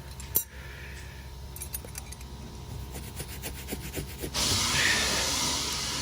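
Light scratching and scraping strokes as slime is worked out of carpet fibres and cracks. About four seconds in, a loud steady hiss starts suddenly: a small handheld steamer blowing steam.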